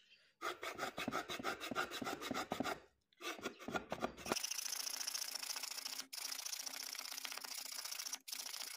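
A homemade file, made from a chisel, filing out the blade openings of a babul-wood hand plane body to clean them up: rapid back-and-forth strokes with a short pause about three seconds in, then denser, more continuous filing from about four and a half seconds.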